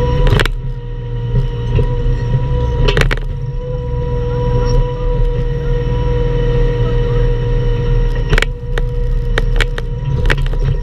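Bobcat E10 mini excavator's diesel engine running steadily, with a steady high whine over it. Sharp knocks and clanks come near the start, about three seconds in, and in a quick cluster near the end.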